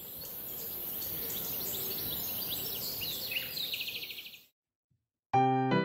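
Birds chirping, with a quick trill about three and a half seconds in, over a steady high hiss. It stops about four and a half seconds in, and a few bright keyboard music notes begin near the end.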